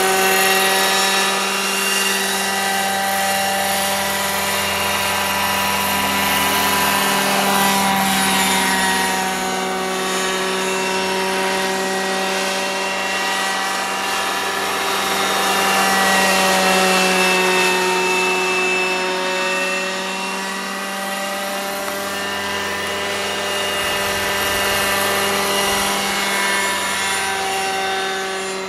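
Vario scale Dauphin RC helicopter in flight, its engine and rotors whining steadily. The upper tones drift up and down in pitch and the sound swells and fades a little as it passes and turns.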